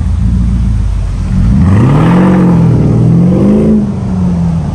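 Mercedes-Benz GL500's V8 through an aftermarket valved sport exhaust, revving up and falling back twice, the second rev shorter, then settling into a lower steady note as the car pulls away.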